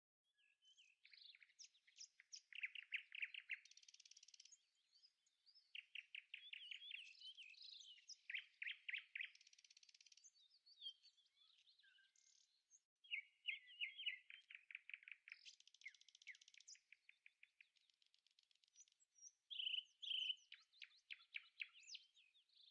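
A songbird singing: phrases of quick chirps and rapid trills, each lasting a few seconds, with short pauses between them.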